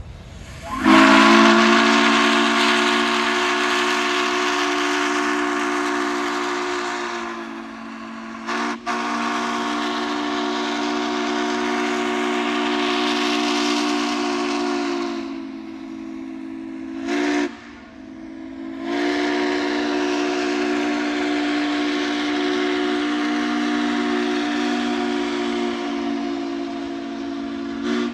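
Steam locomotive whistle from engine 1309 blowing a chord of several notes in four blasts: two long, one short, then one long. This is the standard warning signal for a grade crossing.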